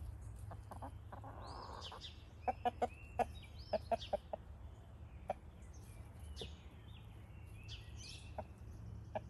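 Chickens clucking softly in short single calls, with a quick run of clucks a few seconds in and thin higher chirping calls among them.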